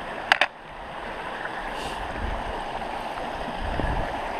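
Creek water rushing over a small rock cascade, a steady noise that grows louder toward the end. Two sharp clicks sound near the start.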